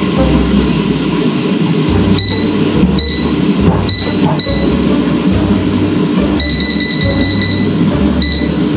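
Aldi 8 L digital air fryer's touch control panel beeping as its buttons are pressed: a string of short high beeps and one longer beep about two-thirds of the way through. They sit over a loud, steady low background sound.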